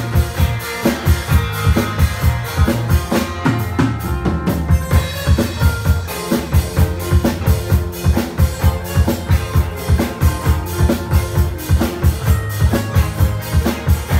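Live rock band playing an instrumental passage: a drum kit keeps a steady beat, about two strong bass-drum hits a second, under bass guitar and strummed acoustic-electric guitar. The cymbals drop out briefly about four seconds in.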